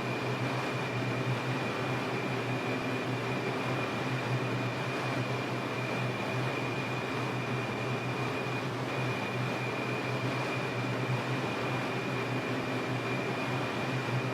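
Inside an R142 subway car running between stations: a steady rumble and ventilation hum, with a thin high whine held steady and dropping out briefly about nine seconds in.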